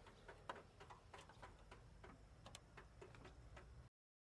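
Near silence broken by faint, irregular ticks and clicks, a few a second; shortly before the end the sound cuts out completely.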